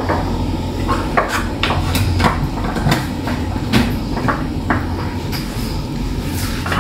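Kitchen clatter: irregular sharp clicks and knocks of dishes and utensils being handled, over a steady low hum.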